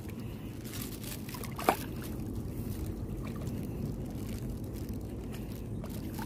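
Shallow seawater sloshing and trickling as a hand gropes through the seabed feeling for clams, with one brief sharp click about a second and a half in.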